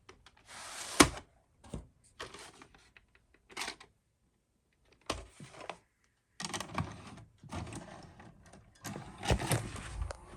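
Irregular mechanical clicks and clattering in short bursts, with one sharp loud click about a second in and denser clatter from about six seconds on.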